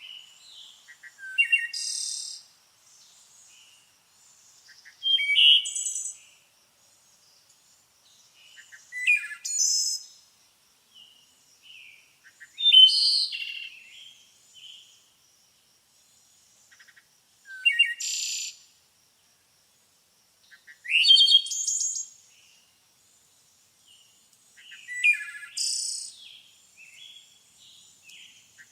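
Birds singing: short, bright, chirpy song phrases of about a second each, repeated every four seconds or so, with fainter scattered chirps in between.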